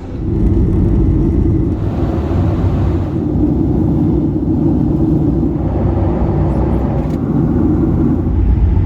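Loud, steady rumble of a jet airliner's engines, with no clear tones in it.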